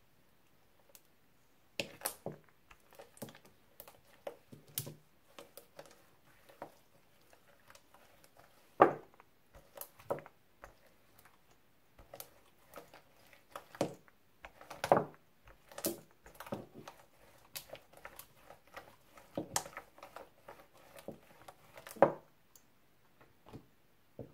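Wooden hand roller rolled over a sheet of sticky clear slime mixed with pencil lip balm: irregular small sticky clicks and squelchy pops, with a few louder pops about nine, fifteen and twenty-two seconds in.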